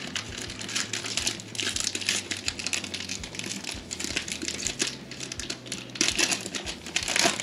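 Plastic wrapper of a trading-card pack crinkling as it is torn and peeled open by hand, in irregular crackly bursts that are loudest near the end.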